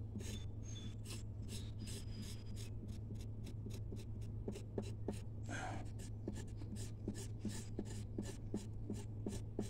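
Knife blade scraping a sisal leaf against a wooden board in quick, even strokes, about three to four a second, stripping away the green pulp to free the fibres.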